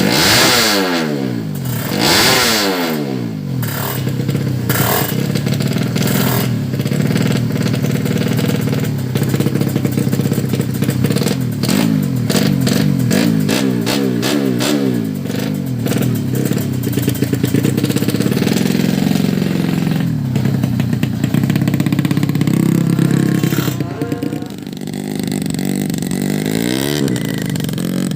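Motorcycle engine revved hard in quick rising and falling sweeps, then held at a steady high note with rapid crackling, dipping briefly near the end.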